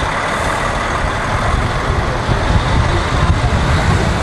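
Heavy truck pulling a low-loader trailer drives past close by: loud, steady engine rumble mixed with tyre and road noise.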